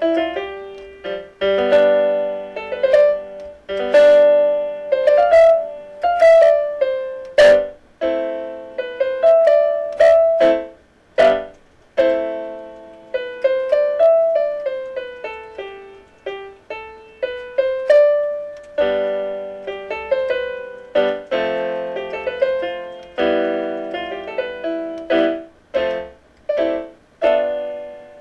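Background solo piano music, with notes struck and left to ring out in chords under a moving melody.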